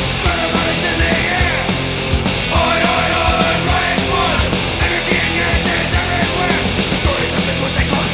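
Punk rock band recording: full band with steady, regular drum hits under a dense wall of instruments.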